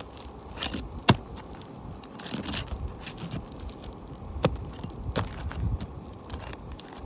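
Scraping and handling noise from work on asphalt roof shingles, with two sharp metallic clinks, one about a second in and one at about four and a half seconds.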